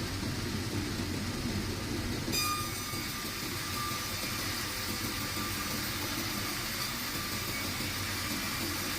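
Sawmill machinery running steadily with a low rumble. About two seconds in, a higher hiss with faint whistling tones joins it.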